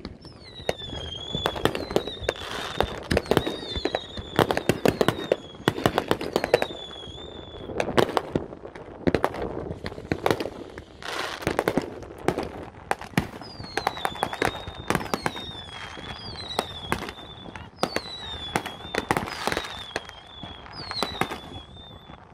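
Many fireworks going off at once: a dense run of bangs and crackling. High whistles that fall in pitch repeat less than a second apart through two long stretches.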